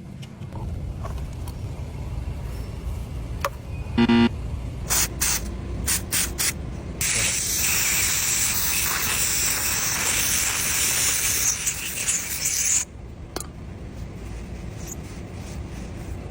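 Aerosol cleaner spray can: a few short sprays, then one long spray of about six seconds that cuts off suddenly, over a steady low rumble. A brief pitched squeak sounds about four seconds in.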